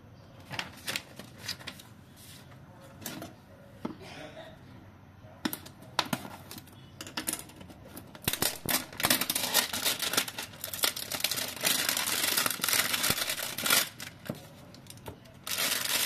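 Cardboard phone packaging and a paper leaflet being handled and unpacked: a few scattered taps and rustles, then several seconds of dense rustling and crinkling, ending in a short burst of rustling.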